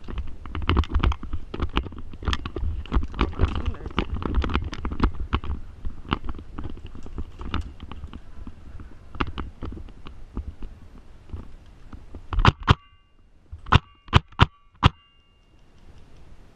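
Rustling and clattering of a player moving with gear, with low rumble and handling knocks on the body-worn camera. Then, about 12 seconds in, about five sharp airsoft shot cracks in a quick irregular string, several followed by a brief metallic ring.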